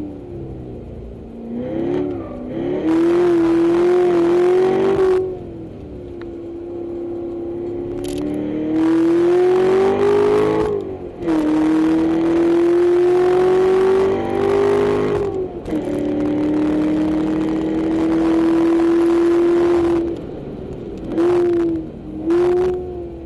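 Corvette C7's 466 hp V8, heard from inside the cabin, accelerating hard on track: long loud pulls with the engine note climbing slowly, broken by brief drops where the throttle is lifted or a gear is changed. Two short bursts of revs come near the end.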